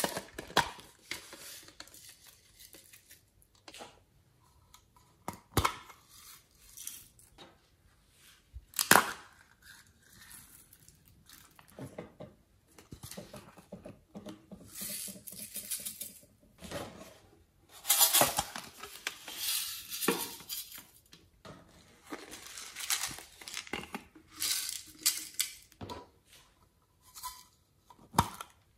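Hard plastic toy cases and bottles clicking and knocking as they are handled and opened, with sharp clicks, the loudest about nine seconds in. In several stretches glitter and tiny beads are shaken out of the plastic containers and rattle onto the slime.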